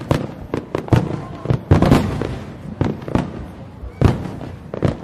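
Aerial firework shells bursting in quick succession: about a dozen sharp bangs over five seconds, some bunched close together, each followed by a short ringing tail.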